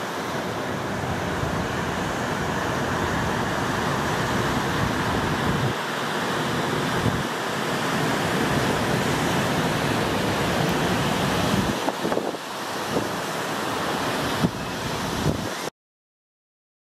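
Steady wash of surf with wind buffeting the microphone, which cuts off abruptly to silence near the end.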